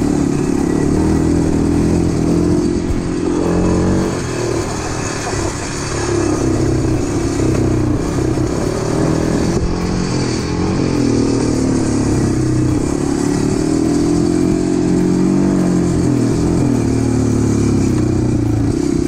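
Quad bike engine running as the quad is ridden along, its pitch wavering up and down with the throttle. It eases off and quietens briefly about four seconds in, then picks up again.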